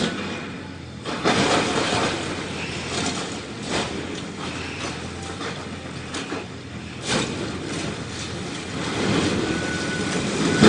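Cat excavator running as it breaks away the base of a concrete silo: a steady mechanical rumble with crunching concrete and a few sharp knocks about one, four and seven seconds in, growing louder near the end.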